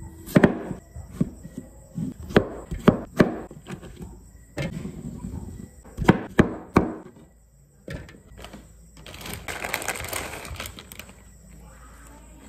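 Kitchen knife chopping a cucumber on a cutting board: sharp knocks of the blade meeting the board, in short clusters. Near the end, a few seconds of rustling as a head of lettuce is handled.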